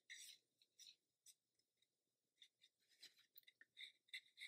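Faint, quick strokes of a watercolour brush on paper: a light scratching that comes more often near the end.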